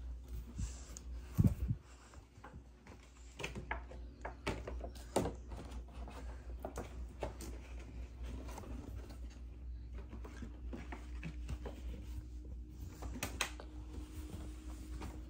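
Small handling noises in a small room: scattered light clicks and taps of objects being moved, with one louder thump about a second and a half in, over a low steady hum.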